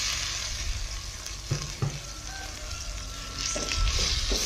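Raw chicken pieces sizzling in hot oil and spice paste in a steel pot, being stir-fried briefly. A ladle scrapes through the pot with a few short knocks against it.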